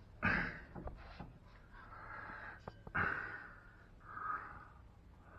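A man breathing noisily in several short breaths while leaning over an engine bay, with a few light clicks and knocks from handling.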